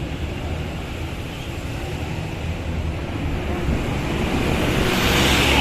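Large bus engine running with a steady low rumble as it draws closer, growing louder with a rising hiss over the last second or so.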